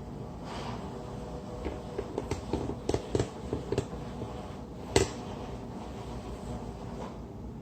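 Robot vacuum cleaner running with a low steady hum, with a run of light clicks and knocks and one sharper knock about five seconds in.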